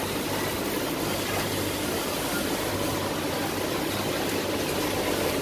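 Industrial double-needle sewing machine running, a steady whir with a low hum underneath.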